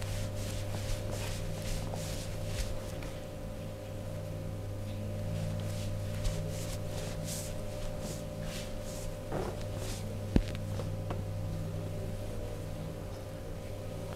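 Hands rubbing and brushing over clothing during a chair massage, a run of short rustling strokes over a steady low hum, with one sharp click about ten seconds in.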